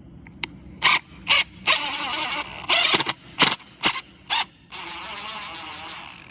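Cordless drill-driver running in a series of short trigger bursts, then two longer runs under load, driving screws into wall plugs.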